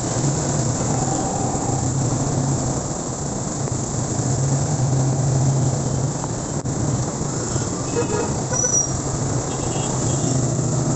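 Steady road noise from a moving vehicle in traffic on a wet road: a constant low engine hum under an even hiss of tyres and wind.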